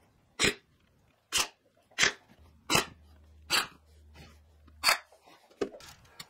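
Ryobi cordless brad nailer firing six times, roughly a shot every second, driving brads into the drawer box, followed by two lighter knocks near the end.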